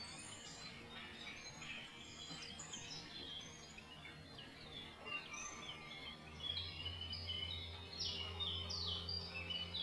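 Dawn chorus of small songbirds: many overlapping short chirps and trills. A low steady hum comes in about six and a half seconds in.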